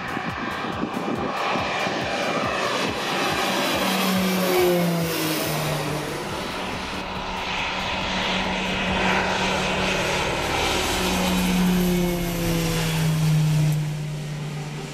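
Twin-propeller radio-controlled model Skyvan flying low passes, its motors and propellers droning steadily. The pitch drops twice as the plane goes by.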